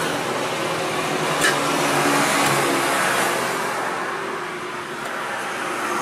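An engine running steadily, with one sharp click about one and a half seconds in.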